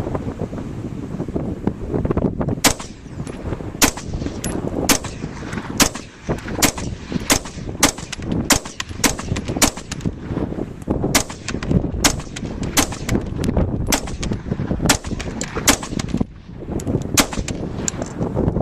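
AR-15 rifle firing a long string of rapid semi-automatic shots, about twenty in all, one to two a second, starting a few seconds in. Wind noise on the microphone underneath.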